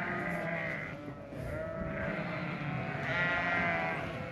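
A crowded flock of ewes and lambs bleating continuously, many calls overlapping. The flock is being penned and sorted apart for weaning.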